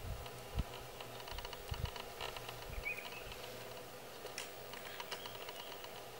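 A cloth dragged and handled by a young chimpanzee on dry dirt and grass: scattered soft rustles and light ticks, with a couple of dull thumps in the first two seconds.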